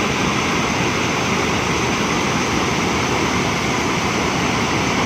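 Floodwater rushing in a swollen river in spate, a loud, steady rush of water.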